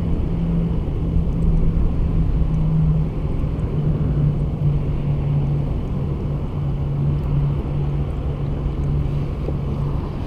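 Steady motor-vehicle hum, with a low engine drone that drops slightly in pitch about three and a half seconds in, typical of traffic on a highway close by.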